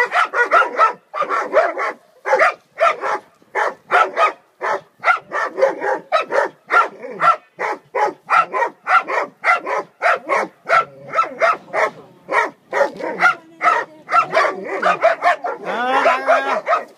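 Dogs barking rapidly and without pause, about two to three barks a second, with a wavering whine mixed in near the end.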